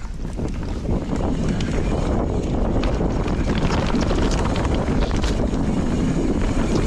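Knolly Warden mountain bike rolling along a dirt singletrack: tyre rumble and wind on the microphone, with scattered clicks and rattles from the bike over the rough trail. It gets louder about a second in as the bike picks up speed.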